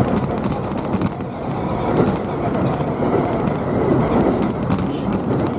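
Kintetsu Series 21 electric train running at speed, heard from inside its front cab: a steady rumble of wheels on rail and running gear.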